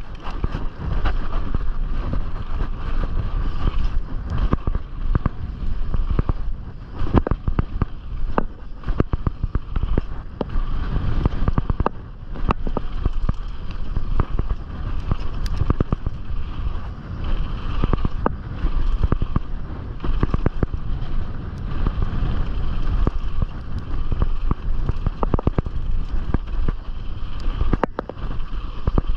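Canyon Strive 6.0 enduro mountain bike riding down a rough bike-park trail, heard from a chest-mounted camera: a steady rumble of tyres over dirt with constant irregular rattles and knocks from the chain, suspension and frame.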